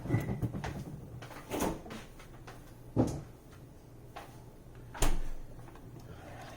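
Knocks and clunks of kitchen cupboards and cookware being handled: a quick cluster at the start, then single sharp knocks about one and a half, three and five seconds in, over a low steady hum.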